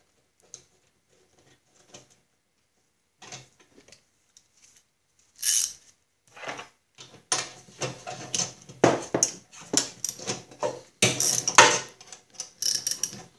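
A wrench and metal mower parts clinking and knocking as the nut is worked back onto the lawn mower's hex drive shaft. It is mostly quiet for the first few seconds, then there is a busy run of irregular clinks from about five seconds in.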